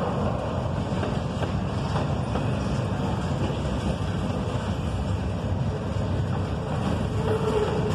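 Intermodal freight cars of a passing train rolling by, a steady rumble of wheels on rail with faint clicks. A faint steady whine comes in near the end.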